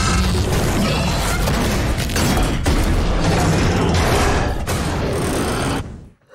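A vehicle's cab being battered from outside: crunching metal and glass and several heavy blows in a loud, continuous din that cuts off suddenly near the end.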